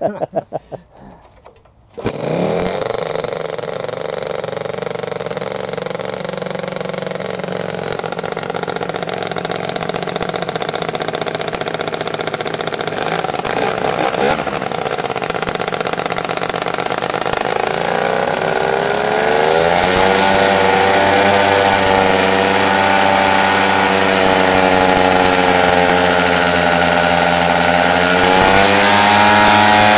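Homemade paramotor's two-cylinder two-stroke engine, built on Minarelli cylinders, catches suddenly about two seconds in and runs steadily. From about eighteen seconds the throttle is opened and the revs climb and hold higher, dipping briefly and rising again near the end.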